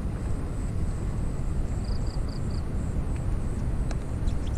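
Wind buffeting the camera microphone: a steady, low rumbling noise that rises and falls. A high call of four quick notes comes about two seconds in.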